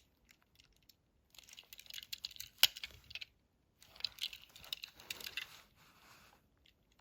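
Die-cast toy cars being handled and set down, in two spells of light clicking and rattling with one sharper click in the first.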